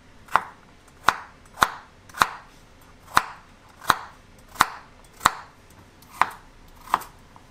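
Chef's knife slicing carrots into rounds on a bamboo cutting board: ten sharp chops, about one every two-thirds of a second.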